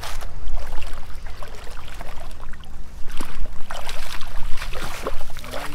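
Lake water splashing as a hooked redtail catfish thrashes at the surface and is scooped into a landing net, in irregular bursts near the start and again, heavier, about three to five seconds in. A steady low rumble runs underneath.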